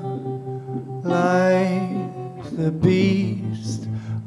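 A man singing slow phrases over his own electric guitar, with a low note pulsing evenly underneath in the second half.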